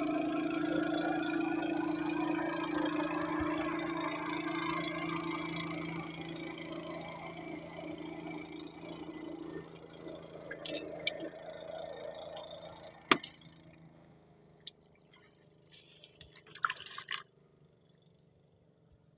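A boat's motor running steadily and fading away as it moves off, with a few sharp clicks and a short splashy clatter near the end.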